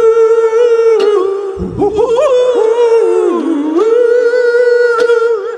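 Wordless singing: a voice holding long, sustained notes, bending and dipping in pitch partway through before settling on a held note again.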